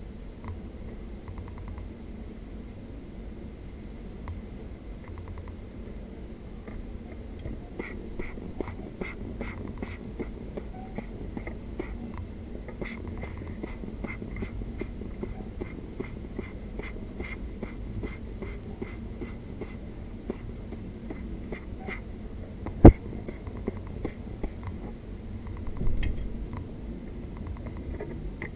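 A brush scrubbing a graphics card's circuit board wet with lacquer thinner, in quick rasping strokes about three a second that begin about eight seconds in and stop shortly before the end. One sharp knock about two-thirds of the way through is the loudest sound.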